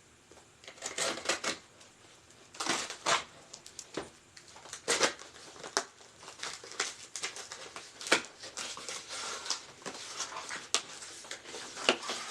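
Packaging being opened by hand: irregular crinkling and rustling, with a few sharp knocks and clicks of box and wrapping being handled.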